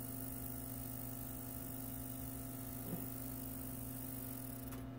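Small phonograph motor of an Admiral record changer running with a steady hum, its little cooling fan rubbing against the motor's bell housing and making a bit of noise.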